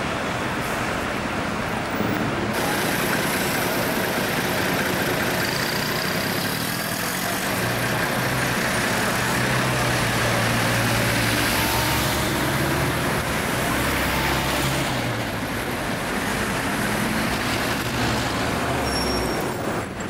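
Busy street traffic, with a Routemaster double-decker bus's diesel engine running close by; its low, steady engine note is strongest through the middle of the stretch.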